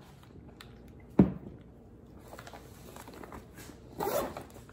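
One sharp knock on the counter about a second in. Near the end comes a short rasp of a zipper being pulled on a fabric insulated lunch bag.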